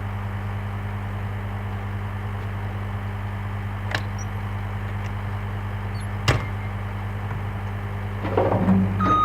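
Skid steer's diesel engine idling steadily, with two sharp knocks about four and six seconds in. Near the end the engine picks up and a backup alarm starts beeping as the machine goes into reverse.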